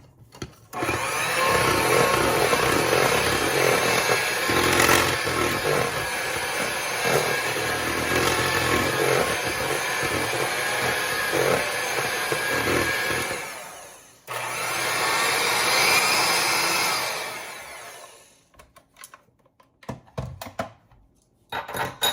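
Electric hand mixer beating coconut cream in a bowl. It runs steadily, stops suddenly about two-thirds through, starts again for a few seconds, then winds down and stops, followed by a few light knocks.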